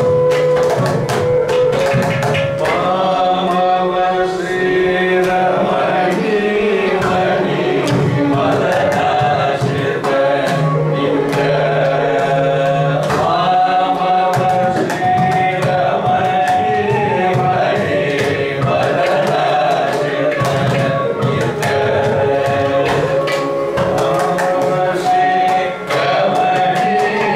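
Live Carnatic music: a male voice and a violin carry a gliding melody over a steady tanpura drone, with a mridangam playing frequent strokes throughout.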